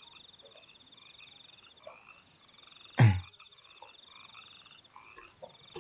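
Faint background chorus of calling animals, a rapid pulsing trill that repeats steadily. One sharp knock about three seconds in is the loudest sound.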